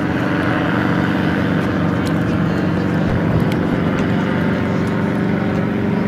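Helicopter engine and rotor running with a steady drone.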